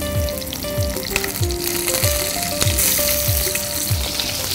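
Oil sizzling in a non-stick frying pan as cumin seeds and green chillies fry, the sizzle getting louder about a second and a half in. Background music with a steady beat plays underneath.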